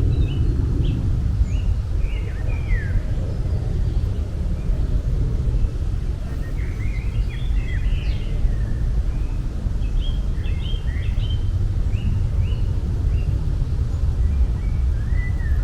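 Small birds chirping in short, scattered calls over a steady low rumble of outdoor ambience.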